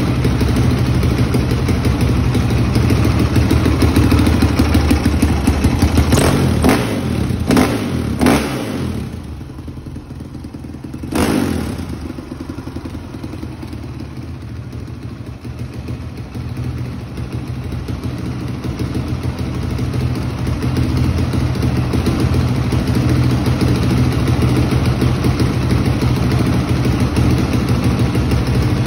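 A 2003 Honda CRF450R's four-stroke single-cylinder engine running on the stand after a carburetor clean and tune. It gets a few quick throttle blips about six to eight seconds in and one more at about eleven seconds, then runs quieter for several seconds before settling back to a steady idle.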